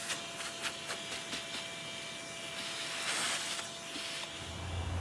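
Vacuum hose sucking drilling debris off a steel van roof: a steady suction hiss with a faint whine, and a run of small ticks in the first second and a half as metal particles are pulled into the nozzle.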